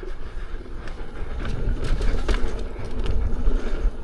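Off-road electric unicycle ridden over a rough dirt trail: a rumbling run of tyre and wind noise, with scattered clicks and knocks from the ground.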